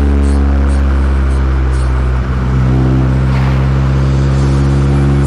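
Honda CR-Z Mugen RZ's engine and exhaust running steadily at a light cruise, with a brief dip in level a little over two seconds in.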